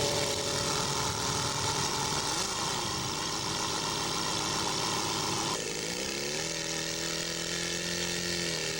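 Model aircraft engine running with its propeller turning at a steady pitch. About halfway through the sound changes abruptly and another model engine rises in pitch over about a second as it revs up, then settles into a steady run.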